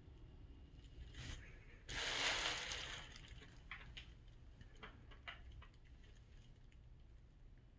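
Quiet room tone with a low hum, a short burst of hissing noise about two seconds in, and a few faint clicks after it.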